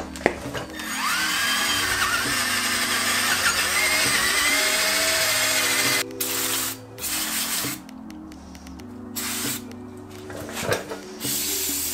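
Aerosol spray can hissing in one long spray of about five seconds, then several short bursts, over background music.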